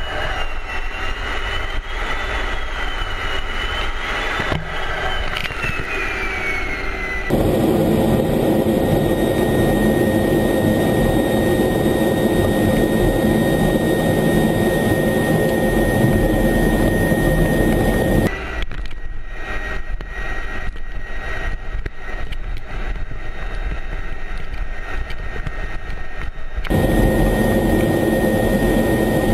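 F-16 fighter jet engine and airflow heard inside the cockpit during approach and runway rollout: a steady rush with a high whine. A wavering high tone in the first several seconds glides down, and the sound jumps abruptly in level and tone at a few points.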